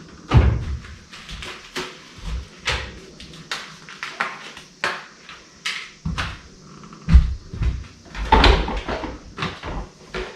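A string of irregular knocks, bumps and clatters, like household items and cupboard or door parts being handled and set down, with a louder cluster of knocks near the end.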